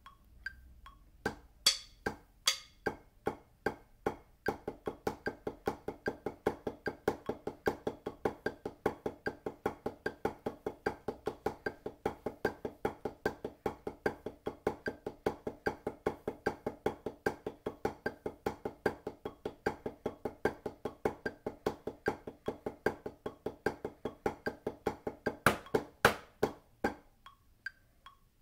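Drumsticks on a rubber practice pad playing paradiddle variations at 150 bpm. A few spaced single strokes open it, then a long, even stream of fast strokes, ending with a few louder accented strokes before it stops.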